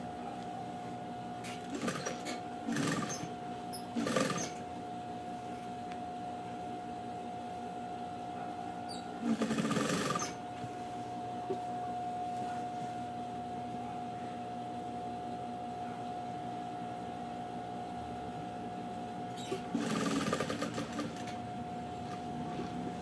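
Electric sewing machine running steadily with an even hum while fabric strips are stitched onto a rug. A few short louder bursts of noise break in, around two to four seconds in, about ten seconds in and about twenty seconds in.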